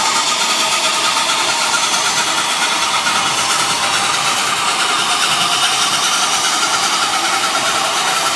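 Railroad turntable drive running steadily as it rotates a Durango & Silverton narrow-gauge steam locomotive and tender, a constant mechanical running noise with a fast flutter.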